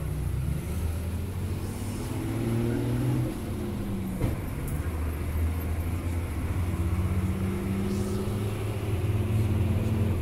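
Bus engine running, heard from inside the passenger cabin: its note climbs over the first few seconds, drops suddenly about three seconds in, then climbs again near the end. A single knock about four seconds in.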